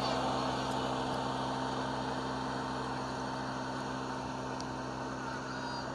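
Steady low mechanical hum with a rushing noise over it, slowly fading a little.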